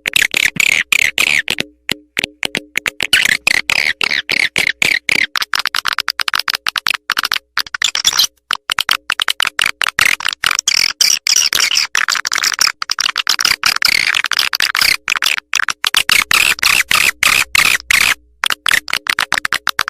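Swiftlet lure call: a loud, dense run of rapid high chirping and clicking twitter, broken by brief pauses, as played to attract swiftlets to a nesting house.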